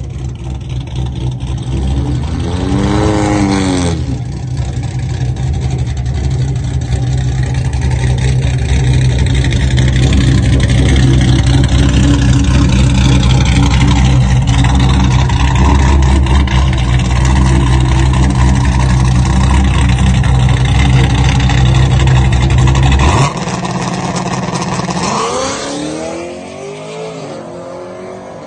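Car engine giving a brief rev that rises and falls, then running loud and steady for about twenty seconds before cutting off abruptly. A quieter engine follows, its pitch gliding down and up near the end.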